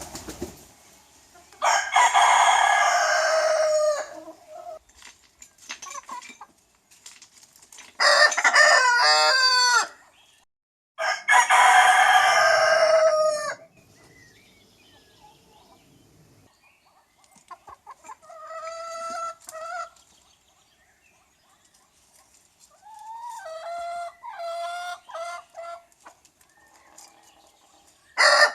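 Roosters crowing: three loud cock-a-doodle-doo crows of about two seconds each in the first half, then two fainter crows later on.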